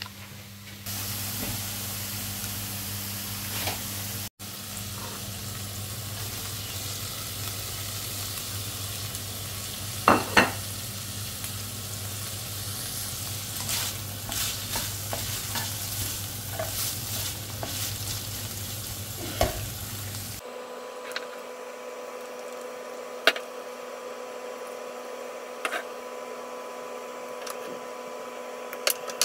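Sliced pork and carrot strips sizzling in a nonstick frying pan, stirred with a spatula that scrapes and clatters now and then. About twenty seconds in the sizzle cuts off abruptly, leaving a steady hum with scattered small clicks while broth cooks in the pan.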